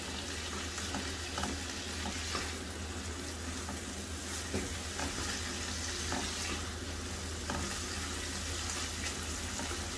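Diced chicken and chopped onion sizzling in oil in a nonstick pan, nearly cooked through, with a spatula stirring and now and then scraping or tapping the pan in a few faint ticks.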